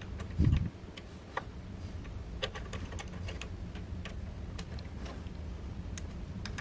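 Small metal clicks and taps as a lathe cutting tool is set in its tool post and the clamp screw is turned with a hex key, with one dull thump about half a second in, over a steady low hum.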